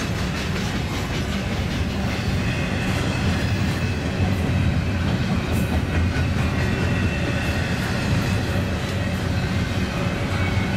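Double-stack container freight train rolling past in a steady rumble of wheels on rail, with occasional faint clicks.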